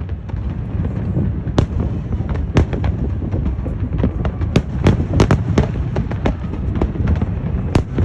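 Fireworks display: a fast, irregular run of sharp bangs from shells bursting overhead, over a steady low rumble.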